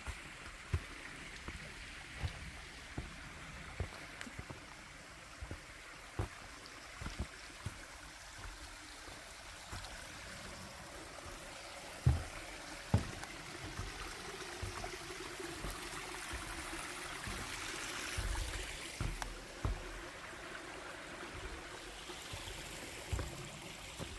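Mountain stream rushing, growing louder about two-thirds of the way through, with footsteps thudding on the trail about once a second.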